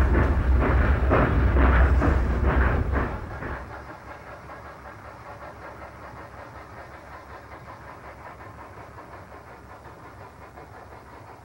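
Steam locomotive exhaust chuffing in a steady rhythm of about two to three beats a second over a heavy low rumble: Sierra Railroad No. 38, a 1934 Baldwin, working hard. About three and a half seconds in, the chuffing stops and only a much fainter steady noise remains.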